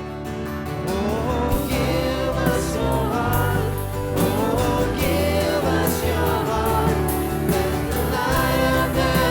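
Live worship band and singers performing a contemporary Christian worship song, with sung melody over bass, keys and drums; the band builds up about a second in.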